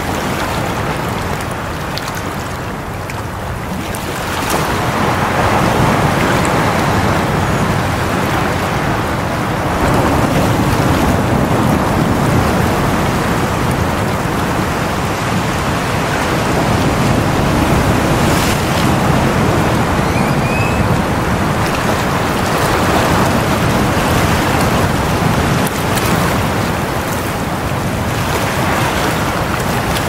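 Sea waves washing in and breaking against shoreline rocks: a continuous rushing surf that swells louder about four seconds in, then rises and falls with each incoming wave.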